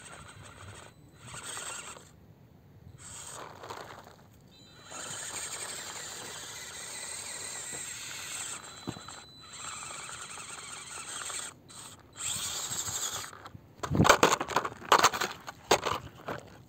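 Small electric motor and gear drivetrain of a 1/18 mini crawler whining in stop-start bursts as it climbs rock, the throttle worked on and off. Near the end comes a run of loud knocks and scrapes.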